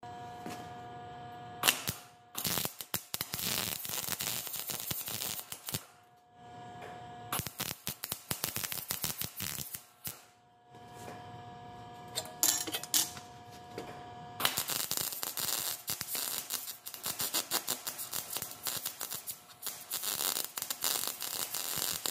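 Miller MIG welder running in four crackling stretches of a few seconds each, the last and longest from about the middle to the end, with a steady hum between them. The weld comes out rough, and the operator thinks something is wrong with the welder, or with his own settings.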